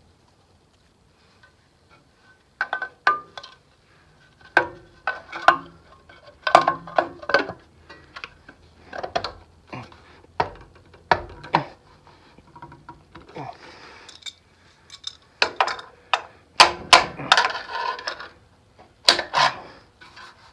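Metal tools and engine parts clinking and clanking: a string of irregular sharp knocks with a short metallic ring, starting about two and a half seconds in.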